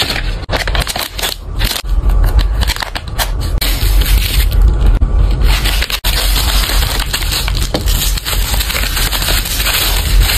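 Plastic packaging crinkling and crackling close up as hands handle a shrink-wrapped DVD box set, then fold and press bubble wrap around it in the second half; the sound breaks off sharply about six seconds in.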